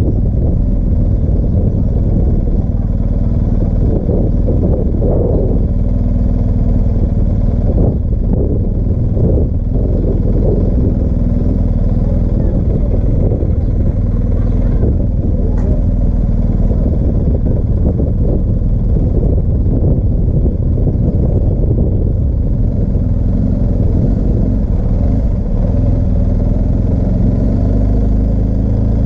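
BMW R1250GS Adventure's boxer twin engine running steadily as the motorcycle rolls along, with a few brief knocks and rattles in the first third.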